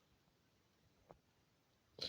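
Near silence: room tone, with one faint short click about halfway through.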